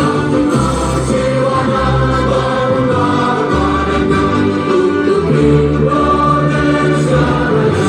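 Music with a choir singing sustained chords over a low bass line.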